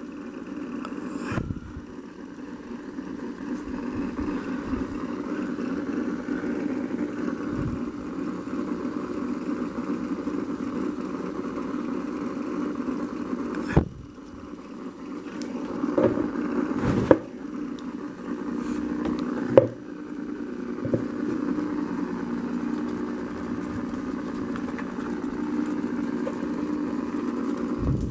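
A steady low mechanical hum, with a few sharp clicks scattered through it.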